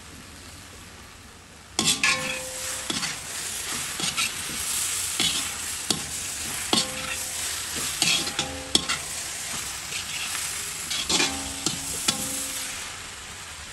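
A metal spatula stirs and scrapes chana dal in a hot iron kadai while it sizzles. The spatula knocks and scrapes irregularly against the pan, which rings briefly after some strikes. It starts suddenly about two seconds in, after a faint sizzle, and eases off near the end.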